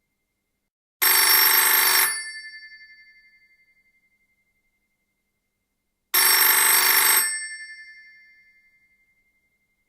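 Old telephone bell ringing in two rings, each about a second long and about five seconds apart, each ring dying away over a couple of seconds after it stops.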